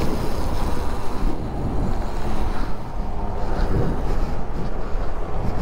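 Heavy wind noise buffeting the microphone of a moving motorcycle, a steady rushing roar with strong low rumble.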